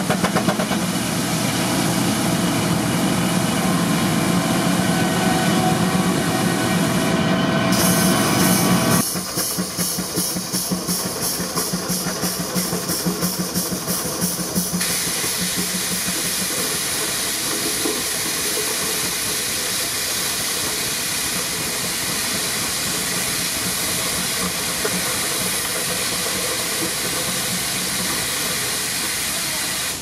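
Case steam traction engine running, belted to a circular sawmill, with steam hiss and mill machinery noise; in the middle a regular, quick chuffing beat comes through. The sound changes abruptly twice.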